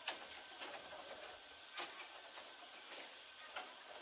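Steady high-pitched drone of insects, with four sharp knocks spread through it.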